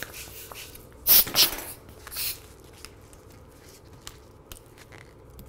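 Hand balloon pump inflating a long black latex modelling balloon: three short airy whooshes of the pump strokes, the first two close together about a second in and a third a second later, followed by a few faint clicks and rubs of the latex being handled.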